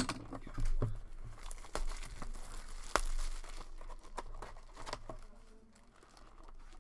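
Plastic shrink wrap crinkling and tearing off a trading-card hobby box, mixed with sharp clicks and scrapes as the cardboard box is opened. About three seconds in there is one loud snap, and the rustling turns softer near the end as a paper insert is lifted out.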